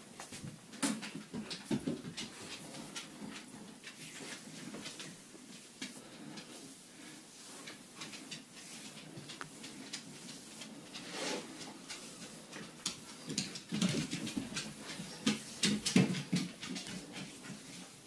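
Hands rubbing and kneading an oiled bare back: many short wet clicks and slaps of skin, with louder low sounds about a second in and again about fourteen and sixteen seconds in.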